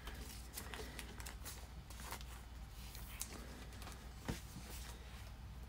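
Faint rustling and light taps of trading cards being handled and set down, with one sharper tap about four seconds in.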